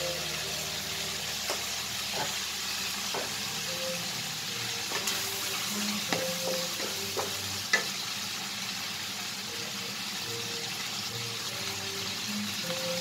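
Meat and sliced onion sizzling in a nonstick frying pan, stirred with a wooden spatula that knocks against the pan now and then, the sharpest knock a little past halfway.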